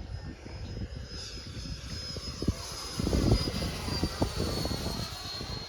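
Radio-controlled model jet flying past, its engine giving a steady high whine that drops slightly in pitch as it goes by. Wind gusts buffet the microphone about three seconds in.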